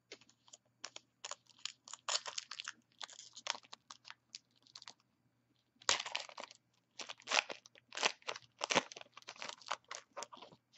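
Foil trading-card pack wrapper being torn open and crinkled, a run of sharp crackles that grows busiest in the second half.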